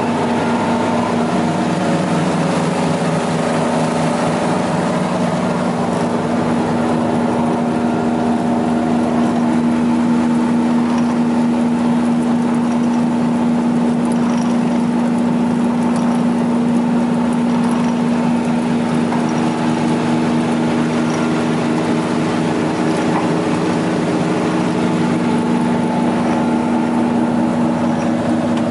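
Chojnicka 130 log-rounding machine running empty on its electric motor: a loud, steady hum with a strong low tone.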